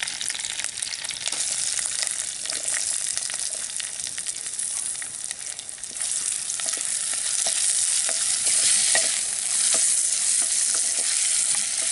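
Sliced onions and curry leaves sizzling in hot oil in a clay pot, stirred with a ladle that clicks and scrapes against the pot. The sizzle gets louder about halfway through.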